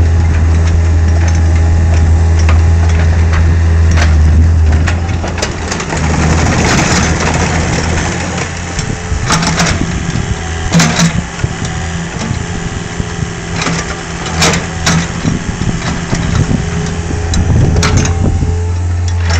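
Diesel engine of a Nissan/Hanix 450 4.5-ton mini excavator running while the boom and arm are worked and the upper structure slews. Its steady low hum changes about five seconds in, becoming rougher and noisier with the hydraulic work, and settles back to the steady hum near the end. Several sharp knocks come through along the way.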